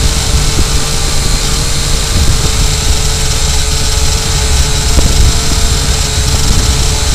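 Syma X8W quadcopter's brushed electric motors and propellers whining steadily, picked up by the action camera mounted on the drone. Heavy wind rumble buffets the microphone underneath.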